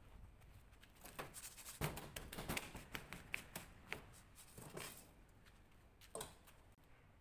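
Crumbly gray lumps tipped out of a metal pan onto a concrete surface: a run of small clatters and scrapes, with a single knock near the end.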